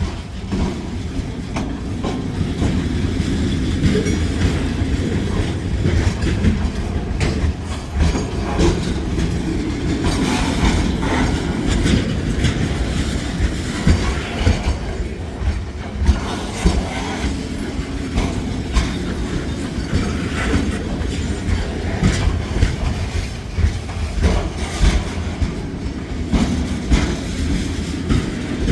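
Freight train cars rolling past, with a steady low rumble and many sharp wheel clacks and knocks as they cross a rough, bumpy grade crossing.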